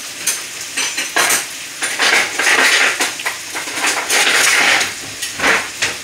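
Metal kitchen utensils clattering, a series of sharp clinks and knocks, over a ribeye frying in butter in a pan.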